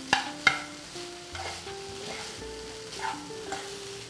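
Steel ladle stirring and scraping minced mutton keema frying in a nonstick pan, with sharp clinks of the ladle against the pan, two of them just after the start, over a faint sizzle. The keema is nearly dry and fully cooked.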